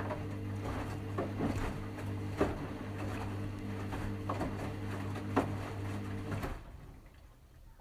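Washing machine running with a steady low hum and scattered clicks and knocks, cutting off suddenly about six and a half seconds in.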